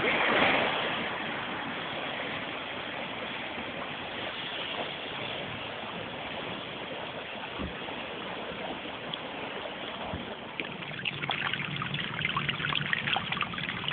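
Floodwater rushing and flowing steadily. A low hum joins in during the last few seconds.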